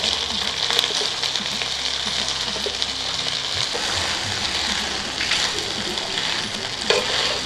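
Cooked broken rice frying in hot oil with onions in an iron karahi, sizzling steadily with crackles while it is stirred with a metal spatula.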